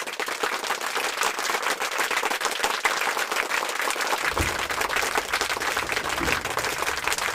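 Dense crackling of many firecrackers going off at once, a continuous rapid popping, with deeper booms joining in about four seconds in.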